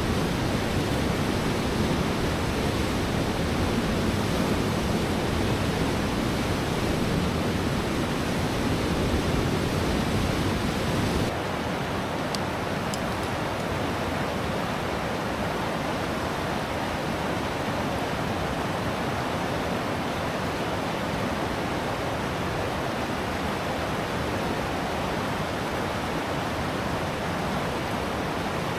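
The Deschutes River in spring flood rushing over rapids: a loud, steady rush of whitewater. About 11 seconds in it changes abruptly to a slightly quieter, less deep rush.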